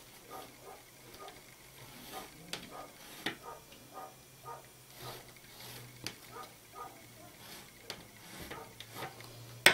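Pencil marking a cutting line on a small piece of fabric, heard as faint, soft scratching strokes at about two a second over a low steady hum. A sharp clack comes right at the end.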